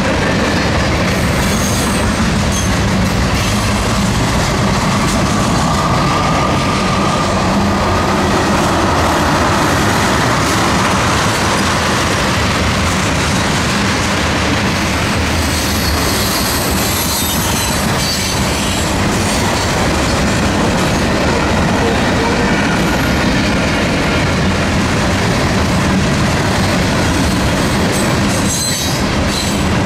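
Cars of a Norfolk Southern manifest freight train rolling past at track level: a loud, steady wheel-on-rail rumble, with brief high wheel squeals now and then.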